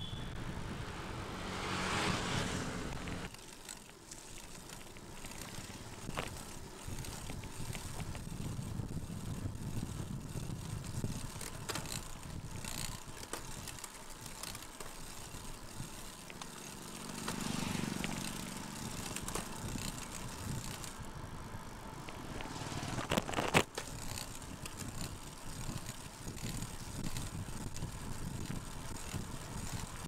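Road bike riding on asphalt: a steady rush of wind and tyre noise that swells twice, with one sharp knock about two-thirds of the way through.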